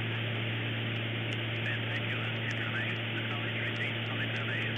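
Steady drone and hiss of the King Air 200's twin Pratt & Whitney PT6A turboprops and propellers in flight, with a constant low hum, heard through the cockpit radio/intercom audio feed.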